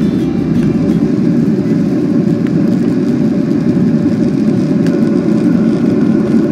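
Steady, loud rumble of a Boeing 737 airliner's jet engines and rushing air, heard from inside the passenger cabin as the plane descends toward landing.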